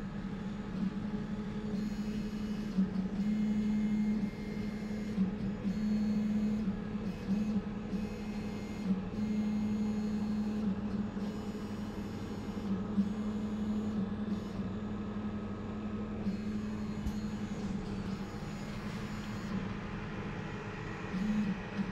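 3D printers running, their stepper motors whining in steady tones that stop and change pitch every second or two as the print moves go on.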